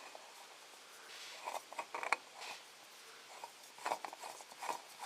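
Scattered short clicks and scrapes of a new oil filter being spun onto its mount by hand and snugged down, the lubed gasket and metal threads rubbing as it tightens.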